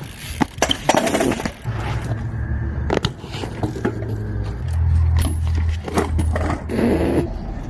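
BMX bike on pavement: a low rolling rumble with repeated metallic clatters, knocks and scraping, as of a bike hitting and sliding on the ground.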